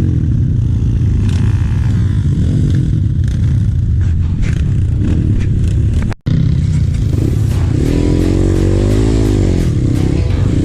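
Trail motorcycle engine running under way, with revs rising and falling near the end. The sound cuts out briefly about six seconds in.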